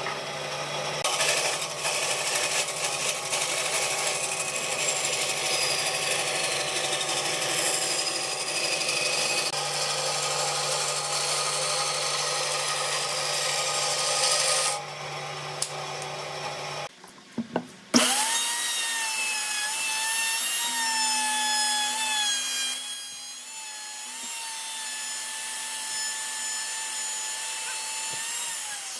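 A bandsaw running steadily with its blade cutting through a curved wooden workpiece. After a short break about 17 seconds in, a DCA AMR02-12 plunge router spins up with a rising whine and runs on as it routes the wood, its pitch wavering.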